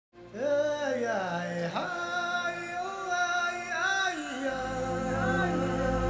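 Background music with a wordless vocal melody that glides smoothly up and down; a low steady bed of sound joins it about four and a half seconds in.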